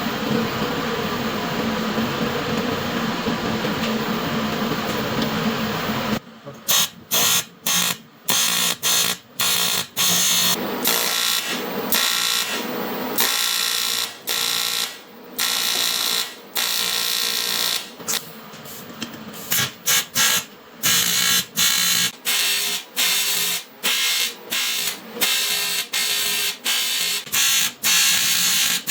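Electric welding arc on aluminum buzzing and crackling. It runs steadily for about six seconds, then comes in many short bursts of about half a second to a second with brief gaps between them, like a run of tack or stitch welds.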